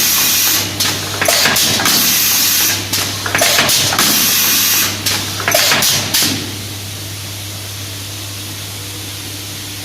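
Confetti filling machine cycling: loud bursts of hiss with clicks about every one and a half to two seconds over a steady low hum. The cycling stops about six seconds in, leaving only the hum.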